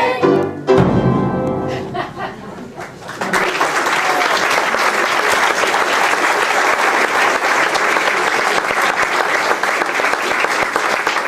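A song's last chord ends about a second in and rings away over the next two seconds. Then an audience breaks into steady applause.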